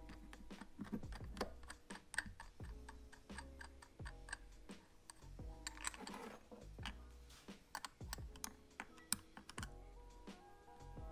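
Irregular small metal clicks and taps as the mirror base's nut, spring and bracket are handled and a wrench is fitted to the nut, over background music.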